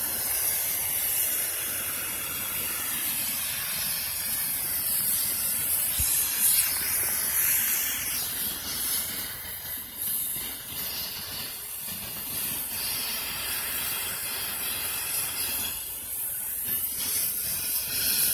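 Medical helicopter's turbine engines running on the ground after landing: a steady hissing, jet-like whine.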